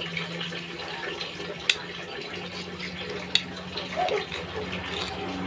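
Close-up eating noises: wet mouth sounds and a utensil picking at seafood, with two sharp clicks of the utensil about a second and a half apart, over a steady low hum.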